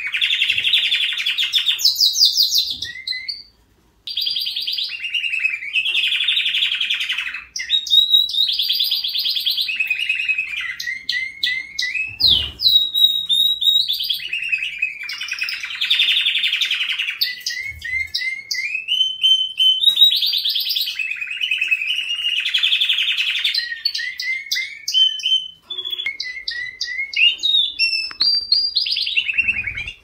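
Canary singing a long, high-pitched song: fast buzzing trilled rolls alternate with runs of short rising whistled notes. The song breaks off briefly about four seconds in and twice more later.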